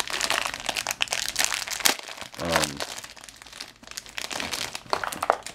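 Plastic bag crinkling as hands handle and open it around an anti-static wrist strap. The crackling is densest for the first two seconds, then comes in sparser crackles.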